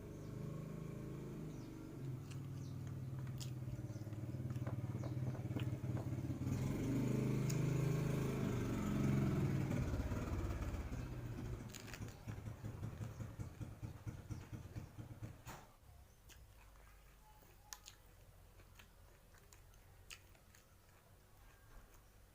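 A motor vehicle's engine passing by, growing louder to a peak about eight or nine seconds in, dropping in pitch as it goes past, and fading out by about fifteen seconds. Faint small clicks follow.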